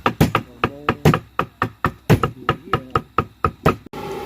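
A rapid, slightly irregular series of sharp knocks, about five a second, cutting off abruptly near the end and giving way to a steady engine hum.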